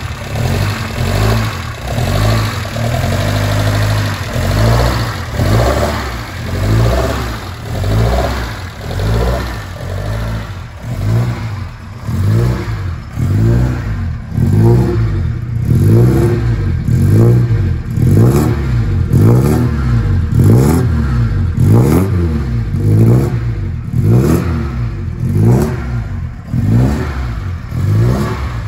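Modified 2.0-litre four-cylinder engine of a 1972 Alfa Romeo Giulia Super running just after a cold start, with the throttle blipped over and over. The revs swell unevenly at first, then from about halfway rise and fall in quick regular blips, roughly one a second.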